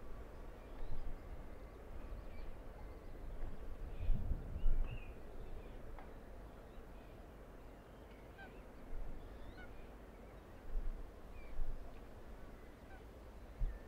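Wetland ambience by open water: faint scattered bird chirps over a low background hum, broken by several short low rumbles like wind gusts on the microphone, the loudest about four to five seconds in.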